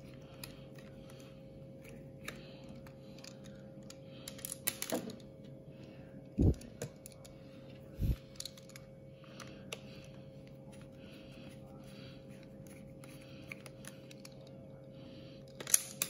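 Small clicks and taps of plastic being handled and a screwdriver working on the Phillips screws of a Dyson V7 cordless vacuum's battery pack. Two dull knocks come about six and a half and eight seconds in, all over a faint steady hum.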